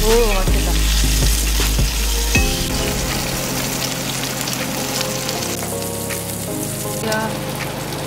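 Sausage patties and hash browns sizzling in oil in a cast-iron skillet, a steady frying hiss with a few light clicks in the first couple of seconds. Background music plays underneath.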